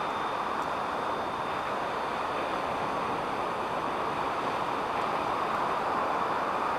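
Steady rushing noise of wind and surf, with a faint steady high tone above it.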